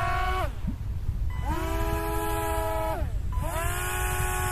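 The air-propeller motors of a homemade RC airboat whine in throttle bursts: each time the pitch rises quickly as the propellers spin up, holds steady for a second or so, then falls as they are throttled off. One burst dies away just after the start, and two more follow.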